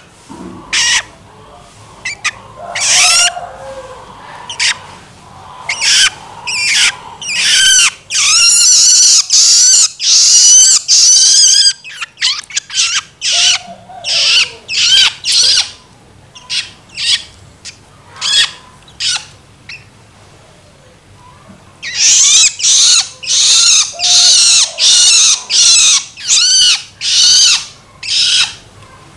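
Juvenile long-tailed shrike (cendet) giving its begging calls ("loloan"): runs of short, high, repeated notes. It calls densely for a few seconds, falls quieter around the middle, then calls steadily a little under twice a second near the end.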